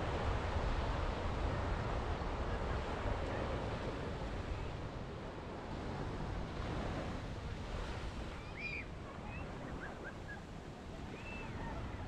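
Ocean surf washing up a sandy beach: a steady rush of small breaking waves that swells and eases.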